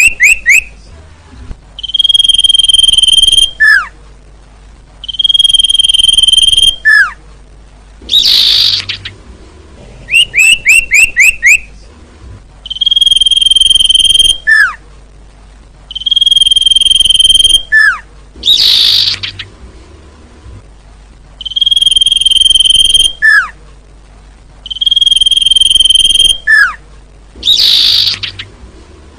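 Sirtu (common iora) calls repeating in a loop about every ten seconds. Each cycle has long, level, high whistles, each ending in a short falling note, a quick run of down-slurred chirps, and one harsh, raspy call.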